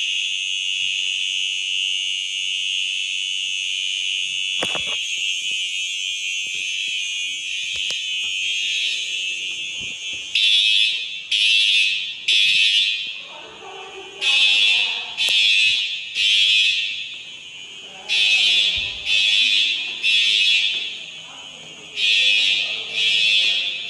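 Building fire alarm sounding: a loud steady high-pitched tone for about ten seconds, then switching to groups of three beeps with a pause between each group, the temporal-three evacuation pattern.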